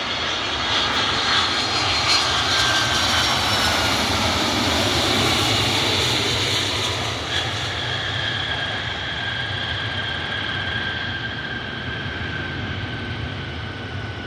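Jet engines of an arriving UPS Boeing 767 cargo jet passing by: a steady roar with a high whine that slides slowly down in pitch, loudest in the first few seconds and then slowly fading.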